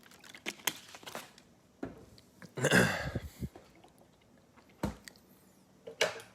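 A person drinking water: swallowing and mouth sounds, with a louder breathy stretch about two and a half seconds in and a few sharp clicks scattered through.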